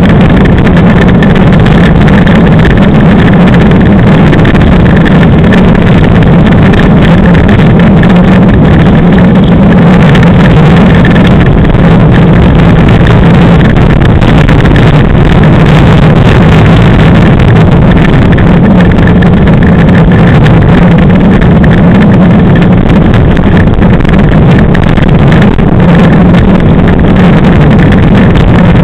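Loud, steady rush of wind buffeting the microphone mixed with the rolling rumble of a Class 5 land yacht's wheels on hard dry lake bed as it sails at speed, with a steady low drone underneath.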